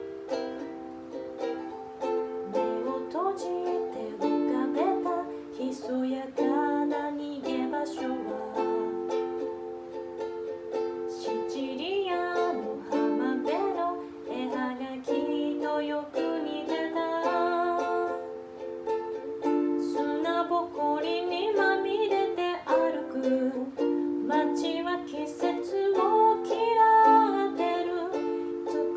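Ukulele playing an instrumental passage of plucked chords and melody notes.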